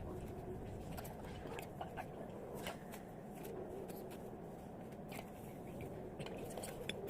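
Soft wet clay being squeezed and kneaded by hand with water into slime, giving scattered small sticky clicks and crackles, a few each second.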